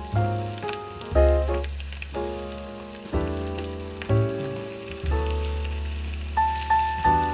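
Oil sizzling and crackling as food fries in a miniature pan, under louder background music: a slow melody of notes, about one a second with three quicker ones near the end, over a deep sustained bass.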